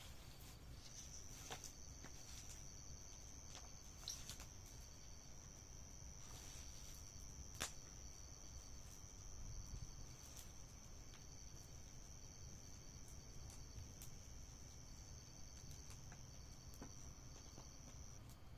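Night insects: a cricket-like trill holds one steady high note, starting about a second in and stopping just before the end, while another chirps in quick, even pulses. A few faint sharp pops from the campfire break in.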